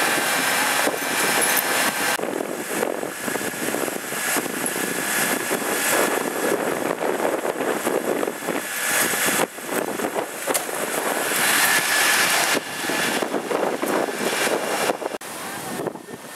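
Fire engine's diesel engine and water pump running steadily at high revs, a loud even drone with faint steady tones, breaking off and resuming abruptly a few times.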